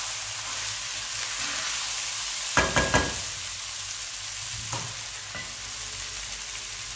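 Boiled rice sizzling in hot ghee in a pan as a slotted spatula stirs it, a steady frying hiss. A quick run of spatula knocks and scrapes against the pan comes about two and a half seconds in, with a couple of lighter ones later.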